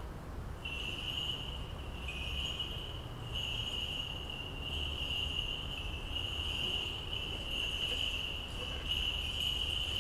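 A steady high-pitched trill that sets in just under a second in and keeps going, over a faint low rumble.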